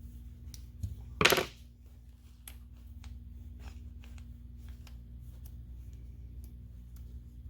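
Clicks and taps from handling a freshly rebuilt 1/2-inch air impact wrench, with one loud, brief clatter about a second in, over a steady low hum.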